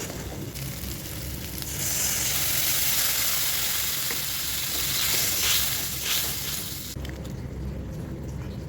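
Food frying in hot oil in a pan, the sizzle swelling loud about two seconds in and dropping away abruptly near the end.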